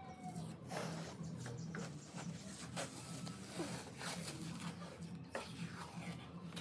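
Strips of adhesive tape being peeled off a wooden slab by hand: several short tearing rips.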